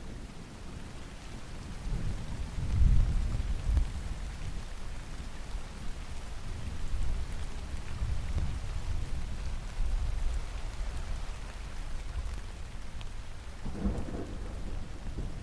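Steady rain with rolls of thunder: a deep rumble swells about two to four seconds in, further low rumbles follow, and a shorter one comes near the end.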